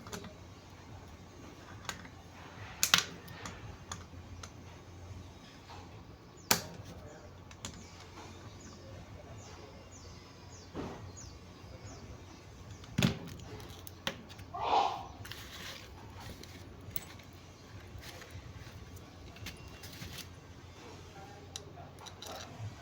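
Scattered sharp metallic clicks and knocks of hand tools and alternator parts being handled during reassembly, with a short scraping rattle about 15 seconds in.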